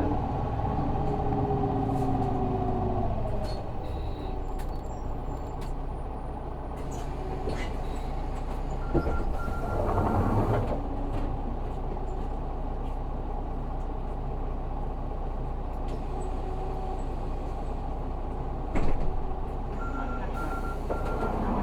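Isuzu Erga city bus's 6HK1 inline-six diesel, heard inside the cabin, winding down as the bus comes to a stop, then idling steadily. About ten seconds in and again near the end there is a hiss of air with a short series of electronic beeps from the doors.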